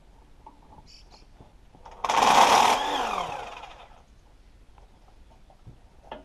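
A motor-driven machine runs loud for under a second, then is cut off and winds down with a falling whine, about two seconds in. Faint knocks and taps of hand work come before and after.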